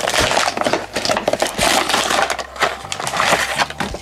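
Clear plastic blister packaging crinkling and crackling as it is handled and pulled open, in a dense run of irregular crackles.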